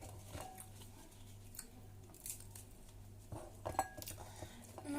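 A few faint, scattered clicks and light crunches over a steady low hum.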